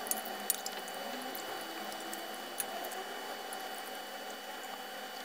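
Faint trickle and splash of cold sugar syrup poured from a metal ladle over baked buns in a glass dish, with a few light clicks.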